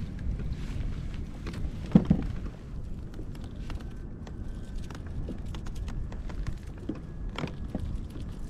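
Scattered light clicks and one sharp knock about two seconds in, over a steady low rumble.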